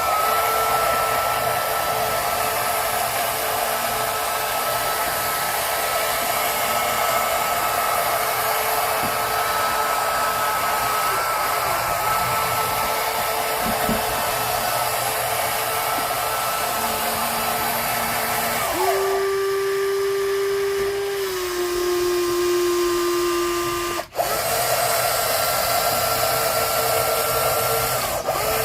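Small electric motors and gearboxes of remote-control toy construction vehicles whining steadily. About 19 seconds in, the whine shifts to a lower, different pitch for a few seconds. After a brief break the original whine returns.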